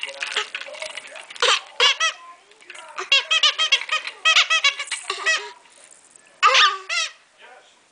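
A baby making high-pitched squeals and squeaks in quick runs of short, rising-and-falling calls, with short pauses between the runs.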